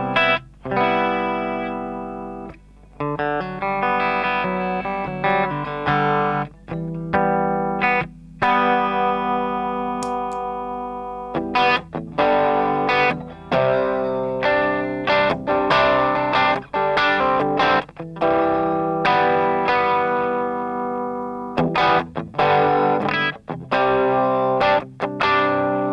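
Electric guitar played through a Tubescreamer TS808 clone overdrive pedal: overdriven chords and notes ringing out, with quicker, choppier strumming from about halfway through.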